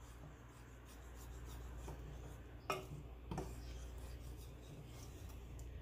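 A wooden spoon stirring thick mole sauce, rubbing and scraping faintly against a metal pot, with two light knocks of the spoon against the pot a little over halfway through.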